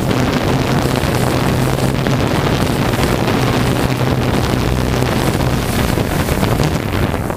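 Loud wind buffeting the microphone, with a steady low hum underneath; it cuts off abruptly near the end.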